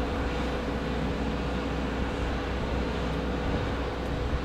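Steady mechanical drone with a low rumble and a constant mid-pitched hum.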